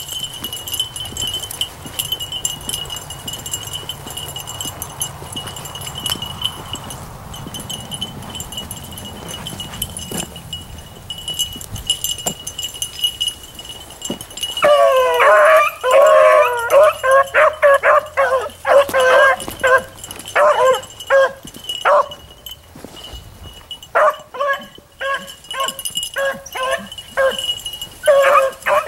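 Beagles baying on a scent trail: from about halfway in, repeated bawling and barking breaks out and comes in bursts to the end. Before it there is a rustle of brush, and a thin steady high tone runs underneath.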